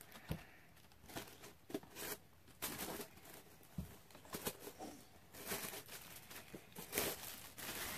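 Faint rustling and crinkling of paper stuffing being pulled out of a handbag, in scattered short crackles.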